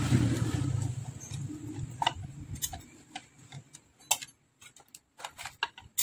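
Irregular sharp clicks and taps of a knife blade prying at the glued glass cover of a plastic solar floodlight housing. A low rumble sounds for about the first two seconds, then the clicks come one by one through the rest.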